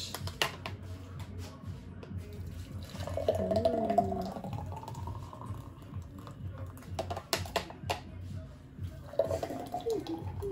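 A thick blended drink pouring from a blender jar into drinking glasses, the filling sound rising in pitch as a glass fills, twice. A spoon clicks and scrapes against the jar as it eases the drink out.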